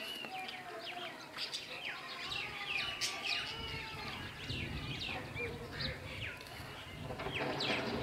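A flock of sparrows chirping busily, with many short overlapping chirps. A low rumble joins about three and a half seconds in.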